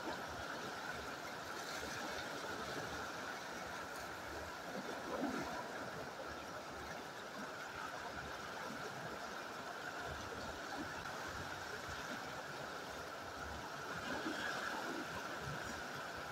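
Steady rushing of a fast river running over rocks.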